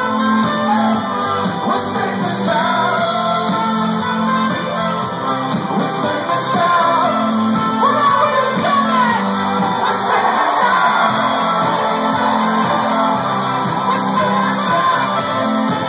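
Live indie-pop band playing through a concert hall PA: a pulsing bass line under singing, with shouting from the crowd.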